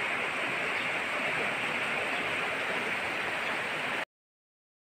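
Fast-flowing river rushing past rocks, a steady hiss of moving water that cuts off suddenly about four seconds in.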